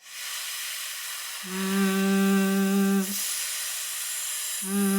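A woman holds long, isolated English fricatives, alternating a voiceless /f/ hiss with a voiced /v/ buzz. She starts with /f/, switches her voice on into a steady /v/ about a second and a half in, drops back to /f/ around three seconds, and goes into /v/ again near the end. The mouth position stays the same and only the voice goes off and on.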